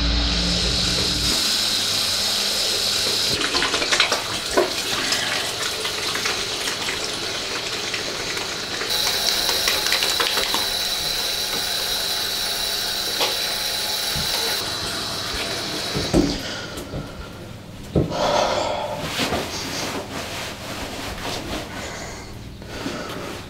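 Water running hard into a basin, a steady rushing that thins out about two-thirds of the way through, followed by a few sharp knocks and splashes.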